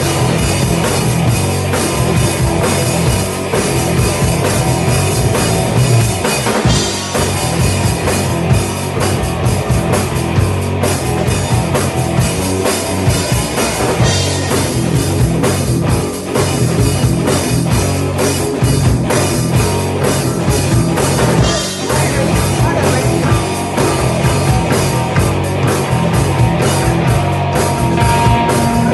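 Live rock band playing loudly without a break: electric guitar, electric bass and a drum kit.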